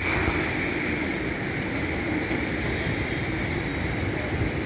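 The Yamuna in flood: fast, swollen water rushing past, a steady noise with a low rumble underneath.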